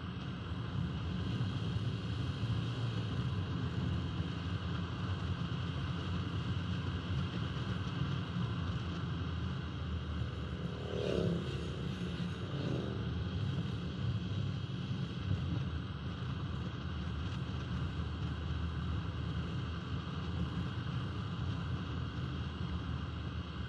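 Steady road, wind and engine noise of a 1971 Alfa Romeo 1750 GTV's twin-cam four-cylinder at a cruise, heard through a camera mounted on the outside of the car. About eleven seconds in, two oncoming motorcycles pass one after the other, each with a brief engine note that falls in pitch as it goes by.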